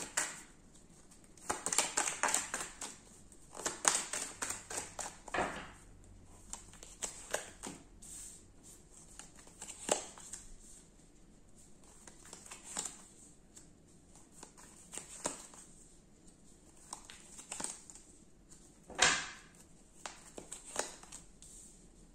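Tarot and oracle cards being shuffled and handled by hand: bursts of quick flicking and rustling, with a few single sharper card slaps, the loudest one near the end.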